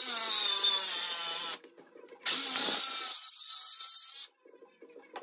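Cordless circular saw ripping through a sheet of MDF, its motor whining under load. The sound stops abruptly about a second and a half in, comes back loud a moment later, then weakens and drops away about four seconds in.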